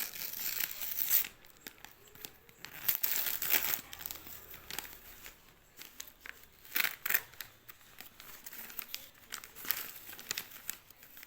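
Gift packaging being crumpled and torn open by hand: irregular crinkling and rustling, with louder tearing bursts near the start, about three seconds in and about seven seconds in.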